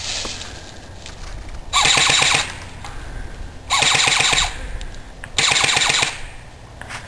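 Airsoft gun firing three short full-auto bursts, each under a second long, about two seconds apart.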